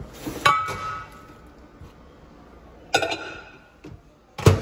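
Glass bowl clinking with a brief ring, once about half a second in and again about three seconds in as it goes onto the microwave's turntable, then the Hamilton Beach microwave's door shutting with a thud near the end.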